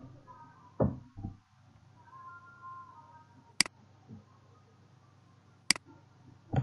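Two sharp computer-mouse clicks about two seconds apart, after two dull knocks about a second in, over faint music in the background.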